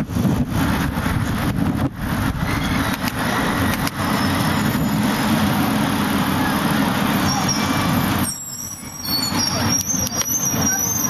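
City road traffic heard from a moving bicycle, with heavy wind rumble on the microphone. A thin high squeal comes in near the end.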